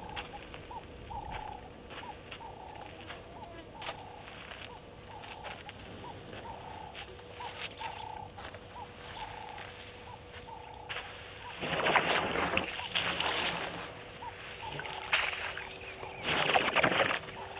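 A bird calls over and over, short notes a little more often than once a second. Then, in the last third, come two loud bursts of splashing and sloshing as an African elephant bull's trunk works the waterhole water to drink.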